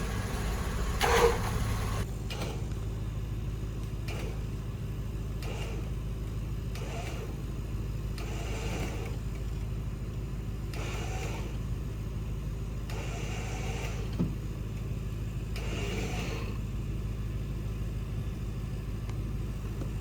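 A vehicle engine idling steadily, with a brief louder moment about a second in.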